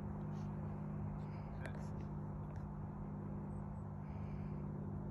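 Steady low hum with faint, indistinct voices in the distance.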